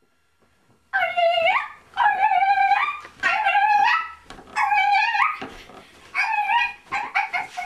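A series of about six loud, high, whining cries, each drawn out for under a second and roughly a second apart.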